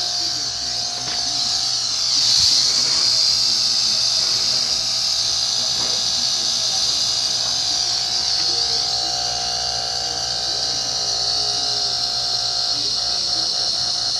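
Refrigerator compressor, repurposed as an air compressor, running steadily with a low hum, a steady mid-pitched tone and a strong, even high hiss.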